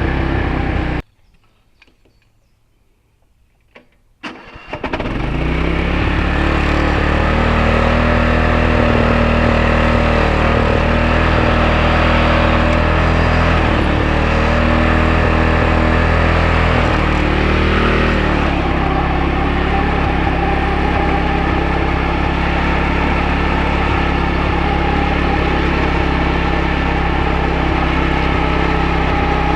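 Wolf-Garten garden tractor engine running, then cutting out abruptly about a second in; after a few seconds of near silence and a couple of clicks it starts up, its pitch rising quickly and settling into a steady run. About two-thirds of the way through the engine note drops and carries on steadily.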